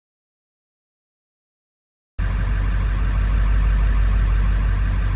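Dead silence for about two seconds, then a steady idle from the Super Duty's 7.3 Power Stroke diesel engine.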